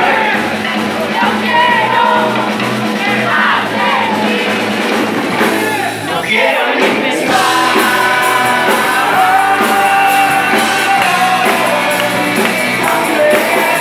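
Live rock band playing: distorted electric guitars, bass and drum kit, with a male lead singer, and a brief drop in the music about six seconds in before the band comes back in.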